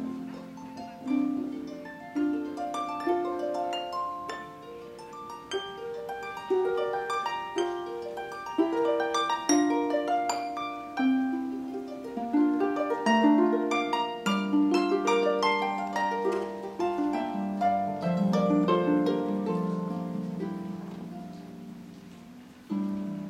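Solo concert pedal harp played by plucking: flowing runs and arpeggios of notes that ring on and overlap. Near the end the music dies down softly, then a new phrase begins just before the close.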